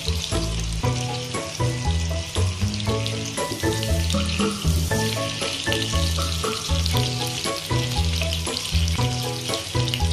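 A pat of butter sizzling as it melts in a hot frying pan, under background music with a repeating bass line.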